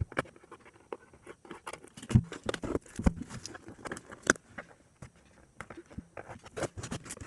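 Adhesive tape being pulled and peeled off a cardboard box by hand, with irregular crackles and taps and a few sharper knocks.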